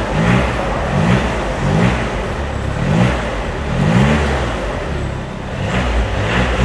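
The Audi A3 35 TDI's 2.0-litre four-cylinder diesel is revved in short repeated blips while standing, each a quick rise in pitch, roughly once a second.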